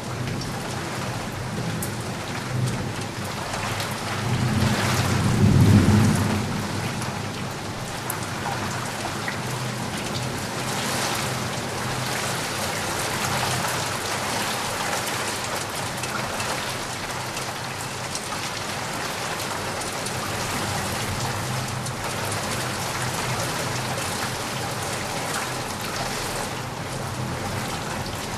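Steady rain pattering, with a low rumble of thunder swelling and fading about five seconds in.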